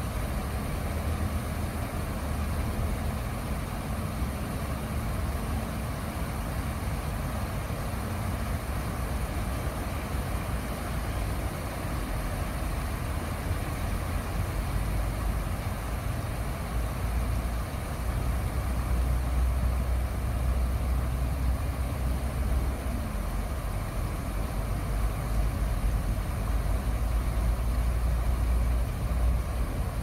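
Shallow stream water running and splashing over flat stones in a steady rush, with a low rumble underneath that grows heavier in the second half.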